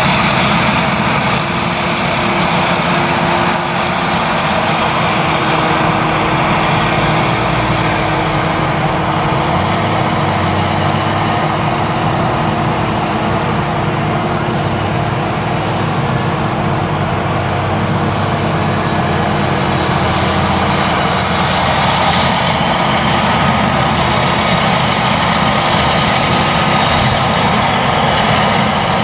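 Claas Jaguar 970 forage harvester's V8 engine running steadily under load while it chops millet, mixed with the engines of the tractors pulling trailers alongside it.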